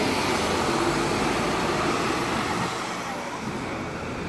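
City street traffic: a diesel city bus driving off and cars passing on a wet road, a steady rush of engine and tyre noise. It is loudest over the first couple of seconds, then eases a little as the bus draws away.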